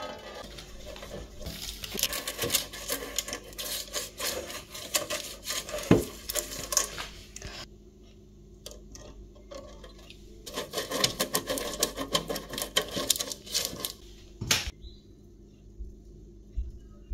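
Crinkling, rubbing and light clinks of baking paper being pressed into a metal springform cake pan. They come in two busy stretches with a quieter pause between, and one sharp knock about six seconds in.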